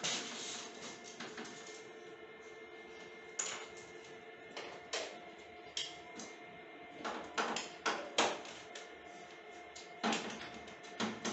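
Sharp knocks and clicks from the plastic casing of a split air conditioner's indoor unit as it is pushed and seated onto its wall mounting plate. The knocks come singly at first, then in a quick cluster past the middle and again near the end, over faint steady tones.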